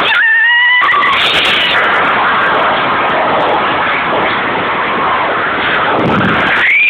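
Loud, distorted crowd screaming and cheering, with a few high held screams standing out near the start and again at the end.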